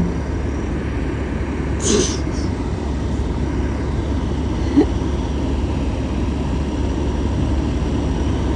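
Steady low rumble of vehicle engines, with a short sharp hiss about two seconds in.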